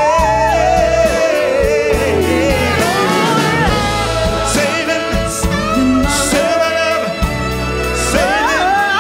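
A live symphonic pop performance: male and female singers sing sweeping, gliding vocal runs over a full symphony orchestra with bass and drums.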